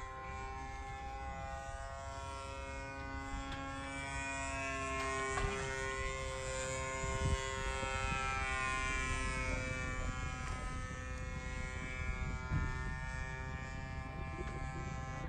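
PAW 149 1.49 cc model diesel engine of a radio-control model plane in flight, buzzing steadily at a high, even pitch that wavers slightly as the plane flies by.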